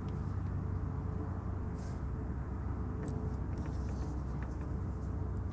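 Steady low background rumble with a faint steady hum, and a light click about three seconds in.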